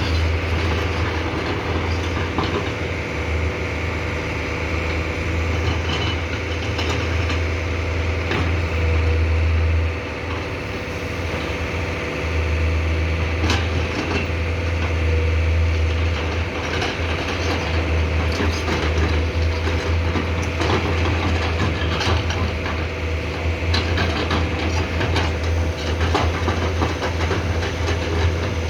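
Komatsu PC210-10M0 hydraulic excavator's diesel engine running steadily with its hydraulics working, easing off briefly about ten seconds in, with occasional short knocks and clanks.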